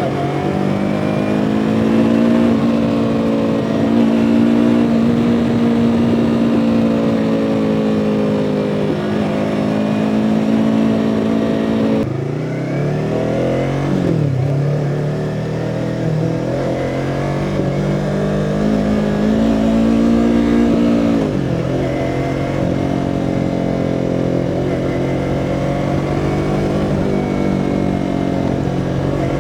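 2017 Yamaha R3's parallel-twin engine running under way at a steady pitch that rises and falls slightly. About twelve seconds in the engine note drops suddenly, dips and climbs again, and it drops once more about twenty-one seconds in before settling.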